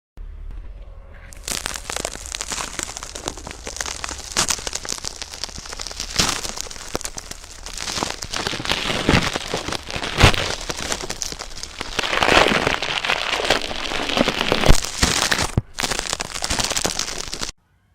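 Slime being squeezed and worked by hand, making a dense run of wet crackles and sharp pops. It stops briefly near the end, resumes, then cuts off suddenly.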